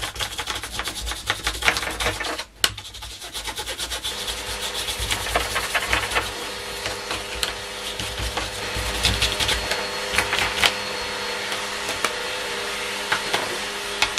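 A brush scrubbing and sweeping grit across a wooden surface in many quick, scratchy strokes, with a short break a little over two seconds in. A steady hum joins about four seconds in and runs under the brushing.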